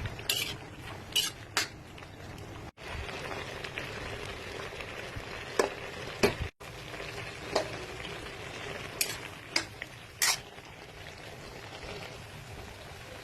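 A pot of bamboo shoots cooking on the boil, with a steady bubbling hiss. A utensil stirs and clinks against the pot several times. The sound cuts out briefly twice.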